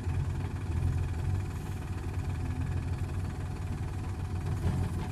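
Diesel engines of a farm tractor and a JCB backhoe loader running steadily as the tractor is pulled out of the mud.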